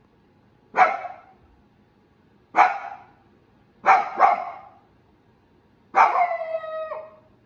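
Shiba Inu barking in separate barks a second or two apart, with a quick double bark about four seconds in. The last bark, near the end, is drawn out into a long falling tone.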